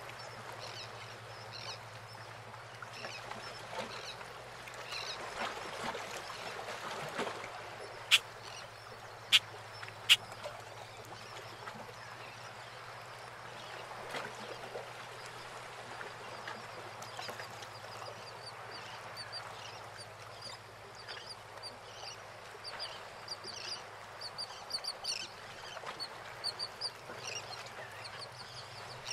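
Harbour ambience: water lapping around moored fishing boats, with birds calling throughout and chirping more densely in the second half. Three sharp clicks about a second apart, some eight seconds in, are the loudest sounds.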